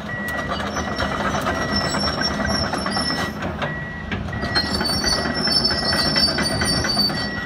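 Komatsu PC210LC-10 crawler excavator travelling on its steel tracks, the track links clanking and squealing over its turbo diesel engine running, with a travel alarm beeping repeatedly. The high squeal grows stronger about halfway through.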